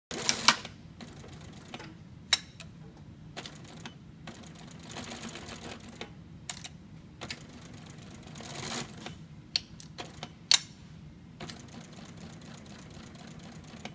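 Scattered sharp clicks and knocks as quilted fabric is handled and positioned at a Brother B875 twin-needle lockstitch sewing machine that is not stitching. The loudest clicks come right at the start and about ten and a half seconds in, over a steady low hum and soft fabric rustling.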